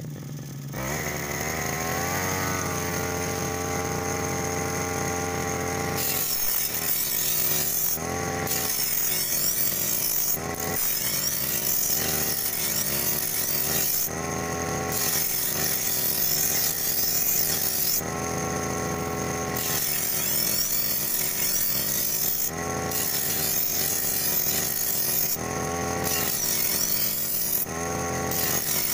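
Backpack brush cutter's petrol engine running and spinning a grinding disc on the cutter head, its pitch rising in the first couple of seconds. From about six seconds in, a steel brush-cutter blade is pressed against the spinning disc in repeated passes, a loud metal grinding with sparks, and the engine tone comes through in the short breaks between passes.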